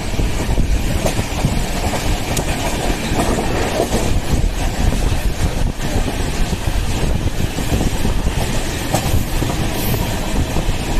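Poorva Express passenger train running through a station without stopping: a steady loud rumble of wheels on the track, with scattered clacks as the wheels cross rail joints.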